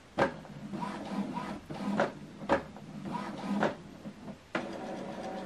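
Epson WorkForce WF-2910 inkjet printer checking newly installed ink cartridges: its mechanism whirs with several sharp clicks, then a motor settles into a steady hum about four and a half seconds in.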